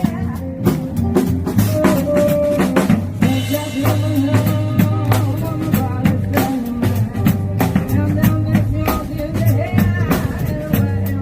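Background pop music with a steady drum-kit beat, snare and rimshot hits over a bass line.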